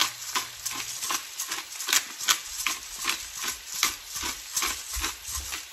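Black peppercorns being ground in a hand-twisted pepper grinder jar over the pan, a steady run of grinding clicks at about three a second.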